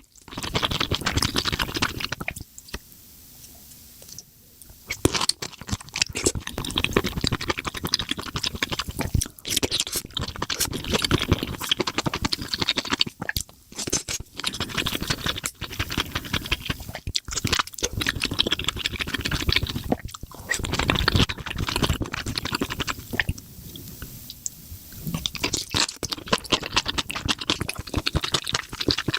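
Close-miked chewing of a big mouthful of spicy mushrooms: a continuous run of wet, clicky mouth and smacking sounds that eases off briefly twice.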